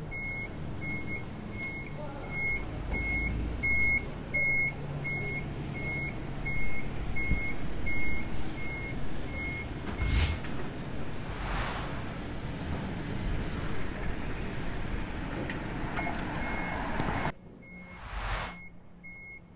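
A vehicle's reversing alarm beeping steadily at about two to three beeps a second, over a low engine rumble and broad noise swells. The beeping stops about ten seconds in and comes back faintly near the end.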